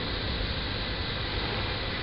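Steady rushing noise with a low rumble underneath, unchanging in level.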